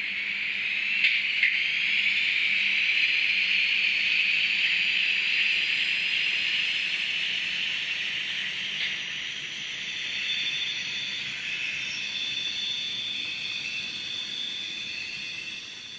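Simulated electric-locomotive sound from a ZIMO MS500 sound decoder, played through the tiny 12 x 8 x 5 mm loudspeaker of a Fleischmann N-gauge ÖBB class 1010 model as it runs. It starts as a high rising whine with two short clicks about a second in. In the second half it turns into the decoder's curve-squeal effect, several shrill tones of wheel flanges squealing on a curve.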